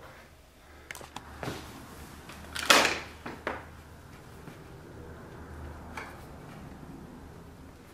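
Wooden knocks and clunks from a saddler's stitching horse as a person sits astride it and sets leather in its clamp jaws. The loudest is a single thump just under three seconds in, with a few lighter clicks before and after, over a steady low hum.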